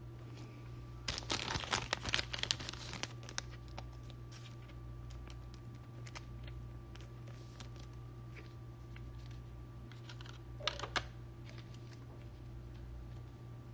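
Quick light clicks and crinkles of small objects being handled close by: a dense flurry starting about a second in and lasting a couple of seconds, then scattered single clicks and a pair of sharper clicks near the end, over a steady low hum.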